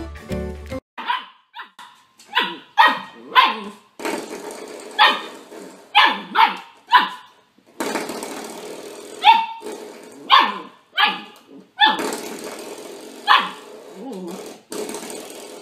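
Small dog barking over and over in short, high barks, in quick clusters of two to five with brief pauses between.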